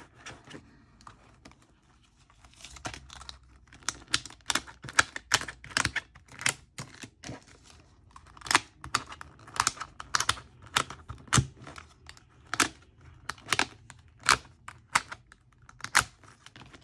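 Punched plastic envelopes being pressed onto the plastic discs of a disc-bound planner: a string of sharp, irregular clicks, about one or two a second, starting a few seconds in.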